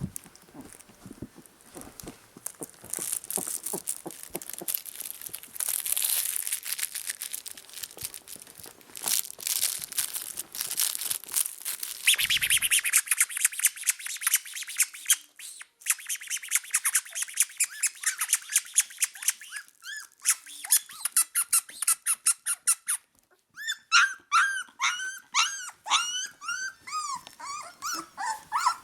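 Puppies squeaking and whining. For most of the stretch there is a dense run of quick, scratchy clicks, and in the last five seconds come many short, high squeaks and whines.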